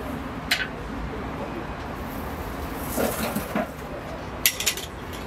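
Long metal tandoor tools clinking and scraping as baked samsa are lifted out of a clay tandoor onto a metal tray: a sharp clink about half a second in and a quick run of clinks near the end, over a steady background din.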